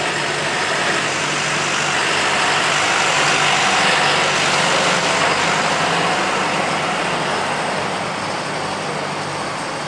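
Farm tractor's engine working hard under load as it pulls a weight-transfer sled down the track. It grows loudest as it passes, about four seconds in, then fades as it moves away.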